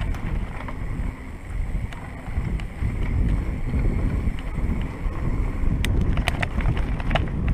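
Wind rumbling on a chest-mounted camera's microphone during a fast downhill ride, with a few sharp clicks and rattles near the end.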